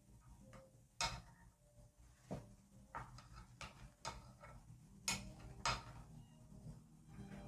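Light clicks and knocks of kitchen utensils against dishes, about seven at irregular intervals, the sharpest about a second in and twice between five and six seconds.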